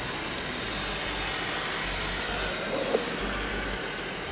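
Radio-controlled model tracked tractor running over steady exhibition-hall noise, with one sharp click about three seconds in.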